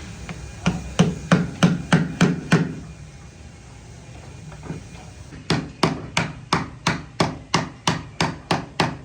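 Hammer striking wood in steady blows, about three a second: a run of about seven, a pause of nearly three seconds, then a longer even run that keeps going.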